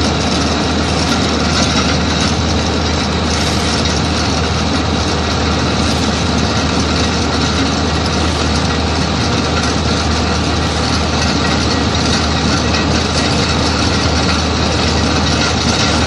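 Mini loader engine running under load while its Simex attachment milling drum cuts asphalt, making a loud, steady, unbroken noise with a constant low hum underneath.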